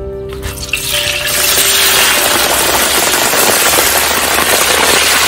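Freshly washed rice-field crabs dropped into a wok of hot oil for deep-frying. About a second in, the oil bursts into a loud, steady sizzle.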